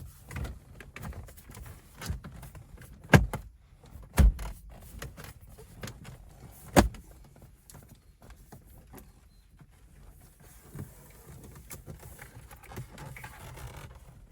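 Plastic dash trim and the head unit being handled and pressed into the dashboard, with rustling and three sharp knocks or clip snaps, about three, four and seven seconds in.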